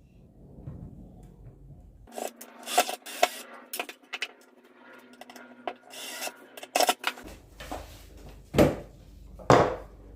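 Wooden pieces being handled: irregular knocks and scrapes of wood against wood, starting about two seconds in, with a few sharper knocks.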